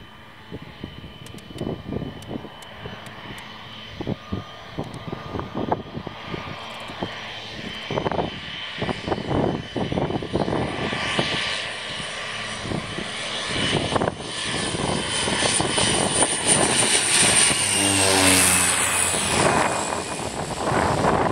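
de Havilland Canada DHC-6 Twin Otter's two PT6A turboprop engines on approach: a steady high whine that grows louder as the aircraft comes in and passes low, its pitch dropping slightly near the end. Wind buffets the microphone throughout.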